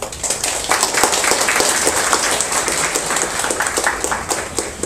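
Audience applauding: many hands clapping at once in a dense patter that stops near the end.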